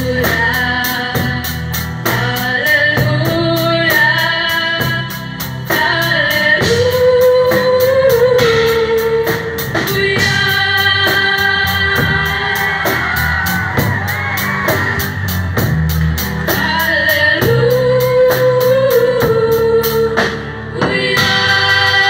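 A trio of girls singing a song into microphones, backed by a live band of guitars, bass, keyboard and drum kit playing to a steady beat.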